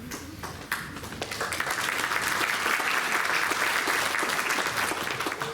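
Audience applauding in a council chamber: a few scattered claps, swelling into full applause about a second in and dying away near the end.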